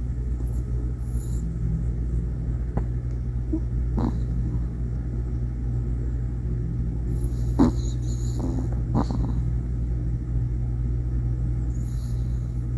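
Toy poodle snoring in its sleep: a low, steady rumble, with a few short snorts about four, seven and a half, and nine seconds in.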